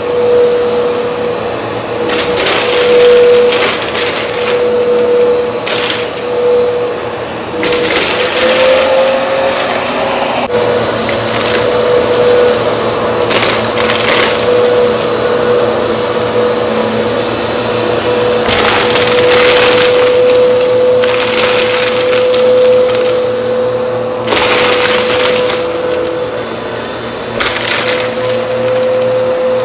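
Bagless upright vacuum cleaner running over carpet: a steady motor hum with a whine, broken again and again by bursts of crackling as it sucks up a pile of dumped lint, dirt and confetti stars.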